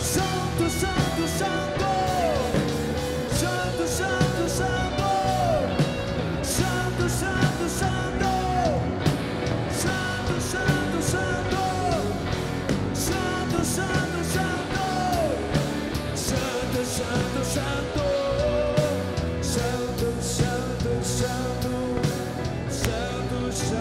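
Live rock band playing at full volume: drums with frequent cymbal crashes, bass and electric guitar, with a high line that slides down in pitch every second or two, and voices singing and shouting over it.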